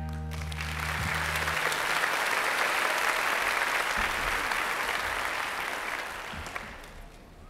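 Audience applauding, swelling over the first second or two and dying away near the end, while the last held chord of a song fades out in the first second and a half.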